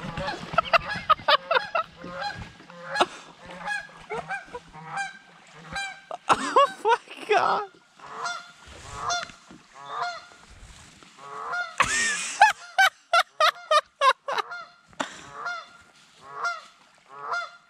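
Geese honking over and over, with a quick run of loud honks about twelve seconds in: alarm calls from geese being chased.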